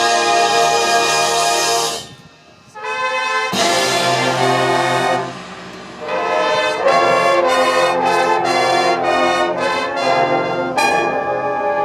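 Marching band brass section playing loud held chords. A brief quiet break about two seconds in is followed by rising notes and another held chord. Short punchy repeated notes come in the middle, and a full chord comes in again near the end.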